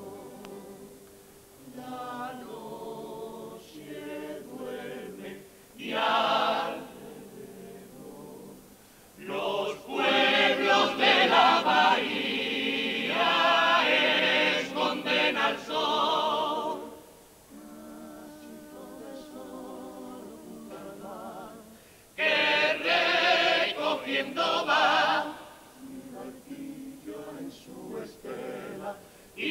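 Cádiz carnival comparsa, a choir of men, singing in several-part harmony. Soft passages are broken by loud full-voiced swells about six seconds in, from about ten to seventeen seconds, and again from about twenty-two to twenty-five seconds.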